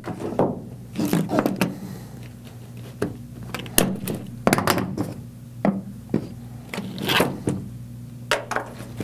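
Hands handling an HVAC hose set and scissors on a tabletop: scissors picked up, a plastic tie strap snipped, and the coiled refrigerant hoses with their brass fittings shifted about. The result is an irregular series of clicks, knocks and thunks.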